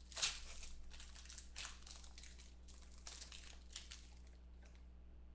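Clear plastic wrapper of a football trading-card pack being torn open and crinkled by hand. The sharpest rip comes just after the start, followed by a few seconds of scattered crinkling.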